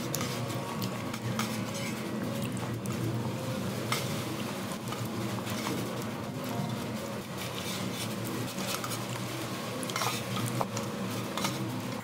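Light clinks and scrapes on a stainless steel divided food tray, scattered throughout, over a steady low background hum.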